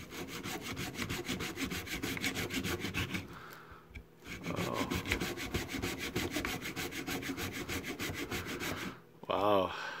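Small hand saw cutting through the hard plastic case of a power adapter along its seam, in quick, even back-and-forth strokes. The sawing pauses briefly about four seconds in, resumes, and stops about a second before the end.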